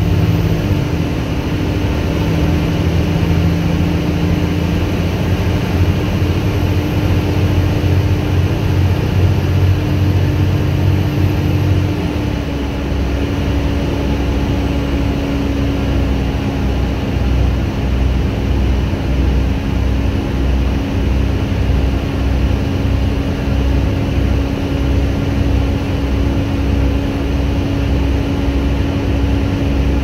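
Volvo B7TL double-decker bus's six-cylinder diesel engine heard from the upper deck while driving: a steady engine drone with a faint high whine, the sound that earns these buses the nickname "hoover". About twelve seconds in the engine note drops, and a low, evenly pulsing throb carries on.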